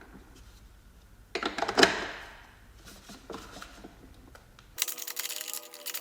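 Metal tools clinking and clattering against metal, loudest about two seconds in, with a smaller clink a second later, as nuts are worked with a socket wrench on an extension. Near the end a steady buzzing hum with a hiss starts abruptly.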